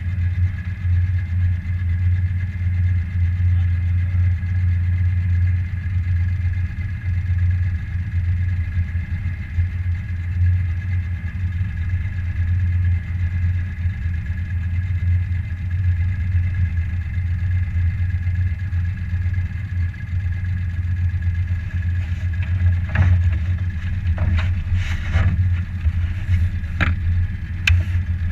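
Boat motor running at a steady low throttle with a low, even drone. Near the end there are a few short knocks or clatters.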